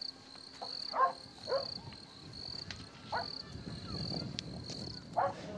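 Field ambience: an insect, cricket-like, chirping in an even rhythm of about two high chirps a second, with a few short swooping animal calls over it.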